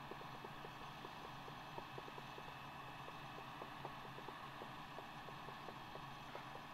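Faint, steady hum of a distant forage harvester and tractor working together, with a fast, even light ticking running through it.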